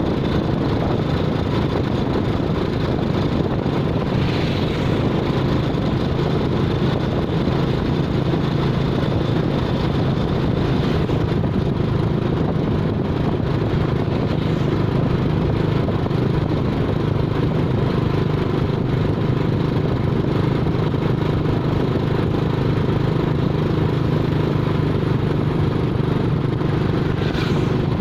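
A motor vehicle's engine running at a steady pace, an even low drone that does not change throughout.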